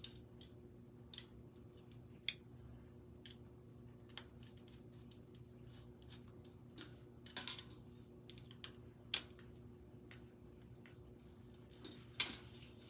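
Scattered small metallic clicks and short scrapes of a hand screwdriver and small screws working against a black steel wire-frame letter tray as it is screwed together, with a louder cluster of clatter near the end. A faint steady hum runs underneath.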